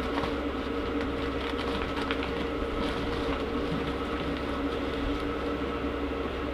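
Steady mechanical hum of a running motor or fan, even in level throughout, with a few faint clicks of parts being handled.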